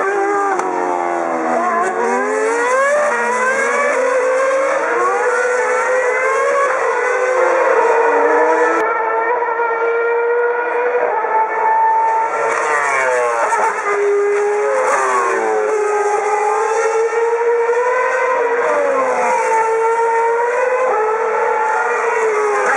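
Formula 1 car engines at racing speed, several cars overlapping. Their pitch falls as they brake and downshift, then climbs again as they accelerate away, over and over.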